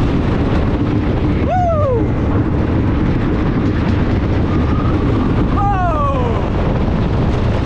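1925 Giant Dipper wooden roller coaster train running at speed over its track, a loud steady rumble. Riders let out two whoops that slide down in pitch, about a second and a half in and again around six seconds in.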